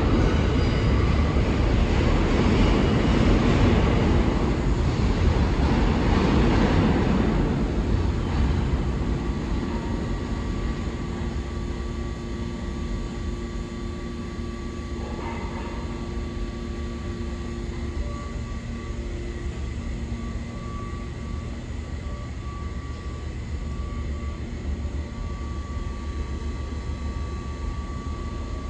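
New York City subway train running through the station, a loud rumbling roar of wheels and motors that fades away about eight seconds in. Afterwards a lower steady station hum remains, with a couple of faint steady tones.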